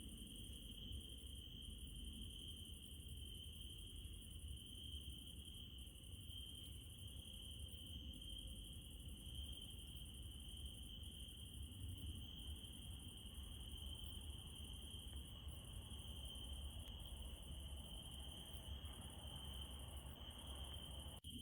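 Crickets trilling in one steady, unbroken high tone, with a fainter, higher steady hiss above it and a low rumble underneath.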